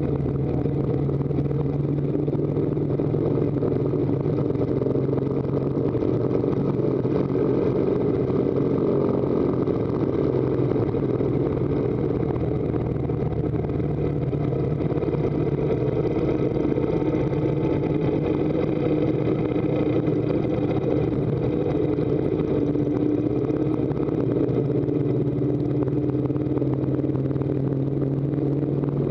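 Harley-Davidson V-twin engine running steadily under load as the motorcycle climbs, with a constant rush of wind and road noise. The pitch shifts slightly now and then.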